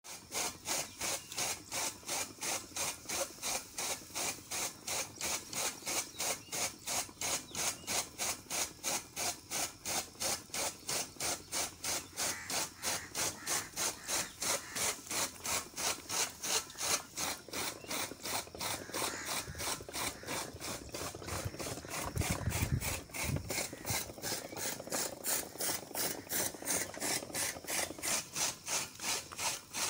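Bull-driven cast-iron gear mechanism of an old toka fodder-chopper drive, turning with a steady rhythmic rasping click, about three a second. A low rumble comes in about three quarters of the way through.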